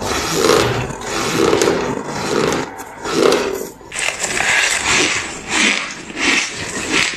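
Close-up crunching of spoonfuls of powdery ice being bitten and chewed. There are about four heavy crunches in the first half, then a quicker run of crisper crunches, roughly one and a half a second.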